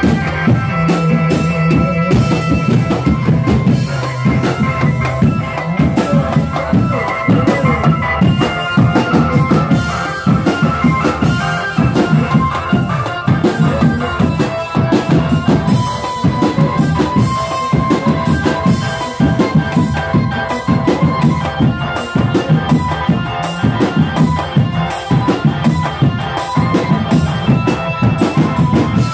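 Live drumband of snare, tom and bass drums beating a steady, dense rhythm, with a keyboard melody over the drums, played through horn loudspeakers.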